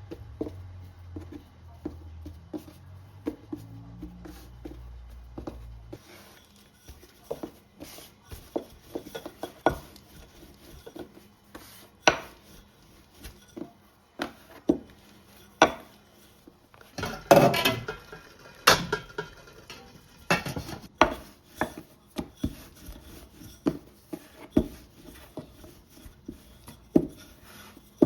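Kitchen clatter: irregular taps and knocks of utensils against dishes and a board, with a louder burst of clattering about two-thirds of the way in. A low hum runs under the first few seconds and then stops.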